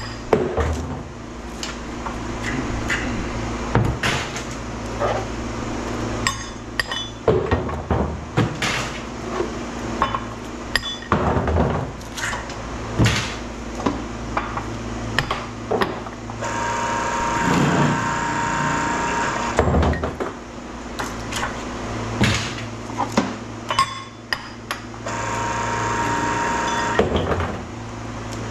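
Metal clanks and knocks as transformer cores and copper coils are handled and broken apart in a press, over a steady low hum. Twice, about two-thirds of the way in and near the end, the press's electric hydraulic pump runs with a steady whine for about three seconds.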